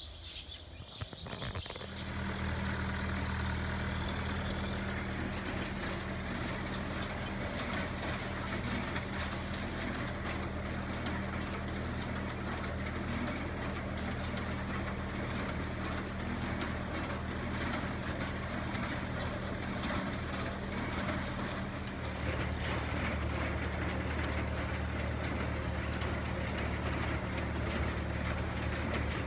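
Tractor engine running steadily, powering an old John Deere 24T square baler being test-run after its rusted, frozen plunger was sanded and greased. The sound sets in about two seconds in, and its note turns deeper and fuller about 22 seconds in.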